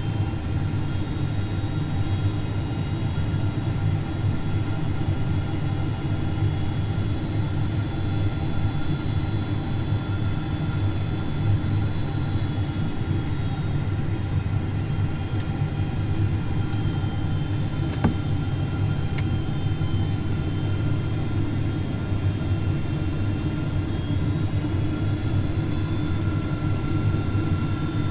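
Steady cabin noise of a Boeing 767-400ER on approach: a low rumble of engines and airflow with faint steady whining tones over it, and one light click.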